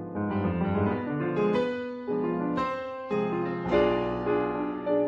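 Piano music: chords struck one after another, about every half second to a second.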